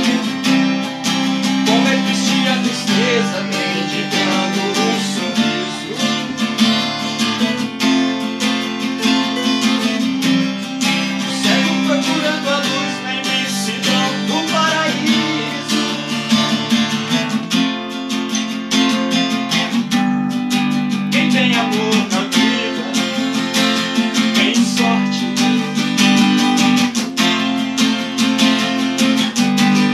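Acoustic guitar strummed steadily, playing an instrumental passage between the sung verses of a song.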